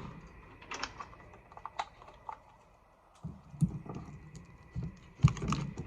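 Cartridges being pressed one at a time into a gun's magazine: a series of irregular metallic clicks, with a louder knock about five seconds in.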